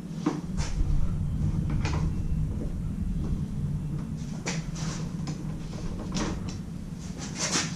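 Scattered light clicks and knocks of hand tools on the fasteners and plastic trim of a motorcycle tank cover, at irregular intervals and more frequent in the second half, over a low steady rumble.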